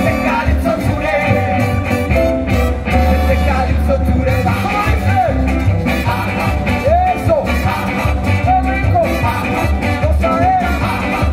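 Live band with saxophones, upright bass, electric guitar and percussion playing a song, with a voice singing over the band.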